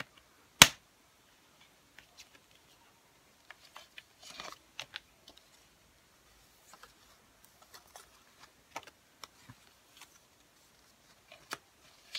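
A plastic CD case being handled and opened: one sharp click about half a second in, then scattered light clicks and brief rustles of paper and cardboard as the booklet and inserts are pulled out.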